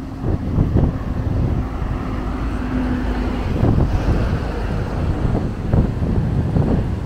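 Wind buffeting the microphone: a loud, gusty low rumble. A faint steady hum runs under it and stops about halfway through.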